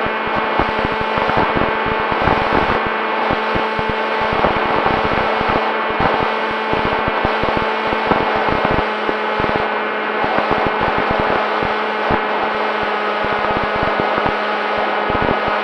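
FX-61 flying wing's electric motor and propeller running at a steady drone, with gusty wind buffeting the microphone in irregular low thumps.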